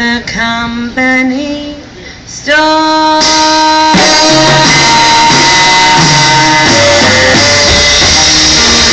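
Live swing band with a female singer: she sings a few held notes, then about two and a half seconds in the full band, with baritone and tenor saxophones and upright bass, comes in loud with long held notes under her voice.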